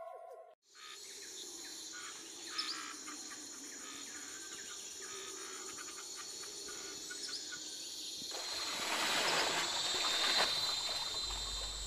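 Rainforest ambience with insects trilling steadily on a high pitch and a few short bird chirps. From about eight seconds in, loud splashing water joins it as a bundle of babasco plants is beaten in a river to release its sap for stunning fish.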